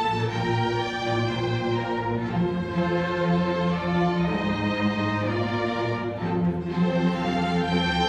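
Student string orchestra of violins, violas and cellos playing slow, held chords. The high parts thin out in the middle and grow fuller again near the end.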